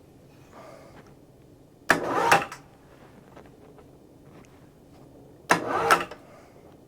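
Winch hoist pulling on a log to turn it, in two short bursts about three and a half seconds apart, each about half a second long and starting sharply.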